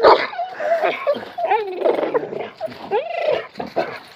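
Dogs whining and yelping in a string of high, wavering cries that rise and fall in pitch, excited at a cat they have chased up a tree.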